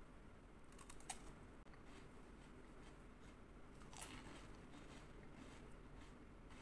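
Crisp chocolate wafer roll bitten with two sharp crunches, about a second in and about four seconds in, with faint chewing between and after.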